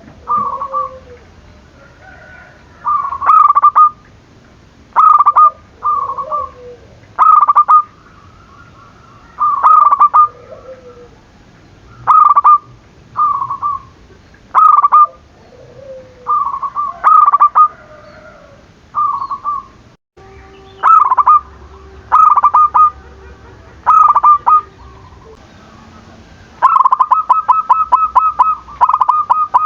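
Zebra doves (perkutut) cooing: short, loud phrases of clipped notes repeat every second or two. Near the end comes a fast run of rapid repeated notes.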